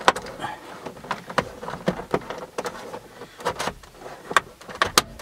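A plastic spudger prying and scraping at the edge of a plastic dashboard trim panel on a Toyota Ipsum, with irregular clicks and knocks of plastic on plastic. A sharper click near the end, as a panel clip lets go.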